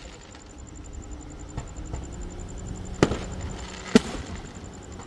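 Aerial firework shells bursting: a light pop about a second and a half in, then two loud bangs about a second apart near the end, the second the loudest.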